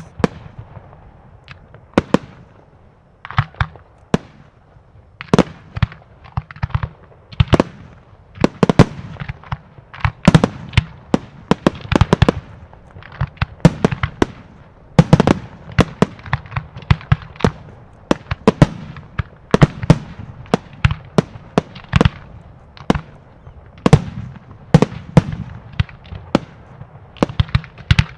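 Aerial fireworks shells launching and bursting in a professional display: a continuous run of sharp bangs, about one or two a second, some coming in quick clusters of several.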